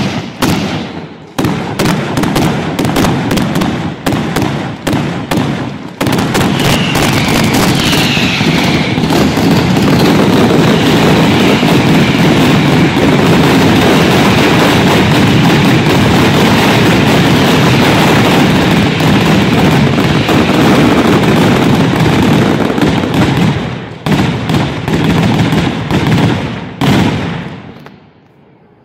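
Ground firework battery (batteria bolognese) going off: a fast crackle of firecracker bangs that thickens about six seconds in into one continuous, very loud barrage. It then breaks up into a few scattered last blasts and stops shortly before the end.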